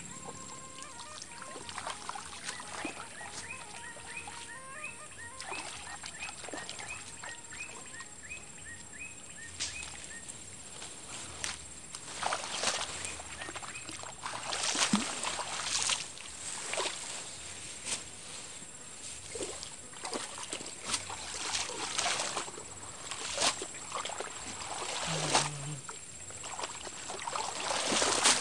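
Water splashing and sloshing as bunches of freshly uprooted water spinach (kangkung) are swished and shaken in shallow creek water to wash the mud off the roots. The splashes come in irregular bursts and grow louder and more frequent after about twelve seconds, with a big splash at the very end.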